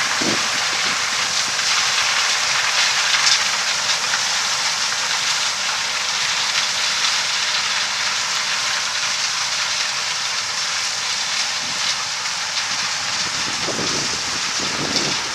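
Combine harvester working a corn field, a steady rushing noise that holds level throughout.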